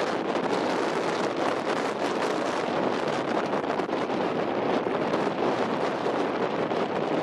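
Steady rushing wind noise on the microphone, with no calls or distinct events.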